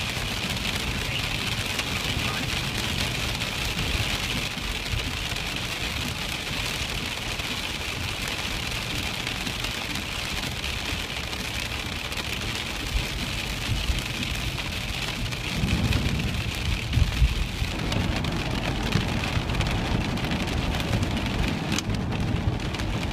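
Rain beating on a car, with tyre noise on a wet, slush-covered road, heard from inside the car. It runs as a steady noise, with a louder, bumpier low rumble about two-thirds of the way in.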